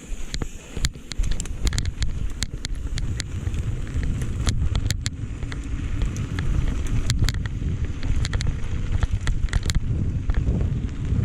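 Wind buffeting the microphone as a steady low rumble that grows heavier after about four seconds, with many sharp clicks and rattles scattered through it.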